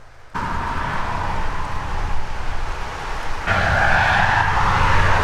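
Steady highway traffic noise, tyres hissing and engines rumbling as vehicles pass. It starts abruptly a moment in and grows louder about three and a half seconds in.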